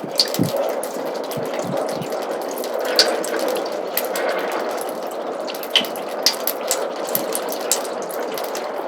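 Snowmelt water trickling steadily in a roof gutter, with irregular drips landing throughout and a few louder drops.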